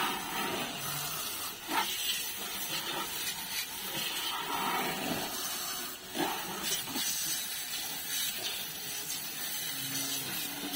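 Water jet from a brass garden-hose nozzle hissing as it sprays onto a scooter, with a couple of brief knocks.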